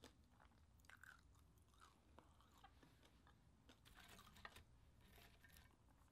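Faint close-up chewing of crispy fried pork, with soft, scattered crunches and mouth clicks.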